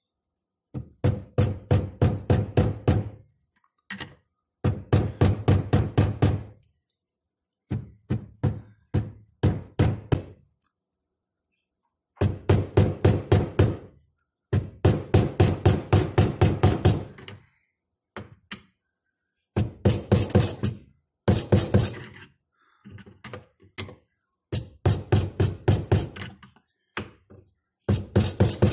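Hammer blows on a screwdriver set against the lug of a kitchen sink basket strainer's locknut, knocking the nut round to loosen it. The blows come in quick runs of about six a second, each run lasting a few seconds, with short pauses between.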